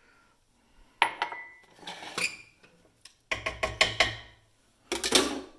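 Kitchenware being handled on a counter: a cup clinks and knocks against other containers as it is picked up and set down, with a sharp ringing clink about a second in and more knocks and bumps after it.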